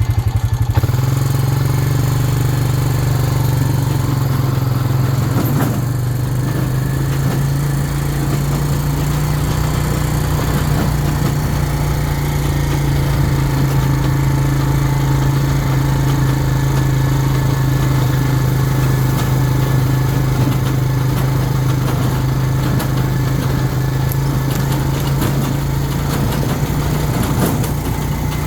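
Engine of a small farm riding vehicle running steadily as it drives along, a constant drone with no change in speed.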